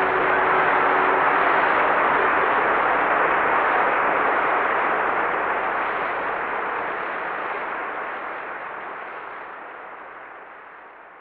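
Theatre audience applauding just after the aria's final orchestral chord, a dense even clapping that fades away over the second half.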